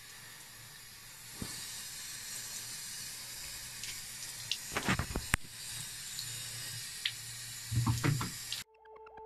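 Thin stream of tap water running into a bathroom washbasin, a steady hiss. A few sharp knocks come around the middle and a cluster of low bumps near the end.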